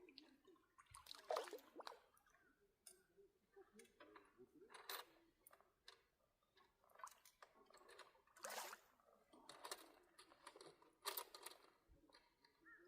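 Faint water sloshing and splashing in short, irregular bursts, about a dozen over the stretch.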